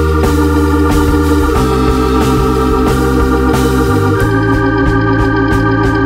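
Background music: held organ-like chords that change every second or two over a steady beat.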